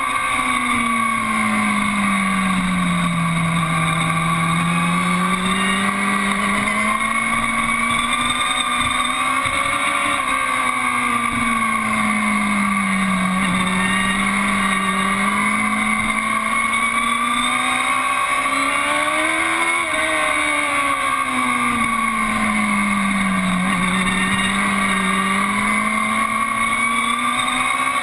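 Aprilia Tuono V4 R APRC's V4 engine running hard at speed, its pitch rising and falling in slow swells about every ten seconds, heard from a camera mounted on the bike.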